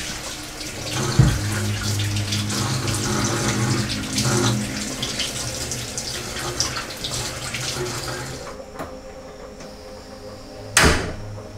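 Water running from a kitchen tap into a sink, cut off about eight and a half seconds in, followed by a single sharp clunk near the end.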